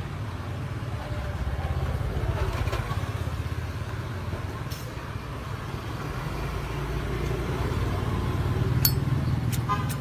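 Steady low rumble of road traffic. Near the end come a few sharp metallic clicks as the brass Zippo lighter's lid is flipped open.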